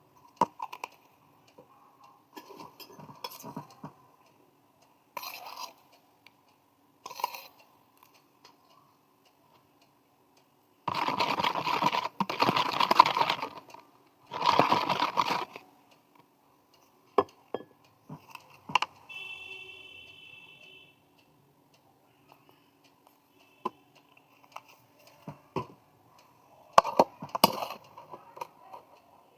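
Slime-making sounds: scattered clinks and taps of utensils and containers, with two longer noisy stretches near the middle.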